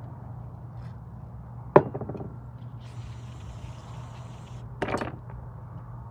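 Sharp clicks and knocks as small carburetor parts are handled and fitted, with an aerosol can of WD-40 hissing in an even spray for about two seconds in the middle, over a steady low hum.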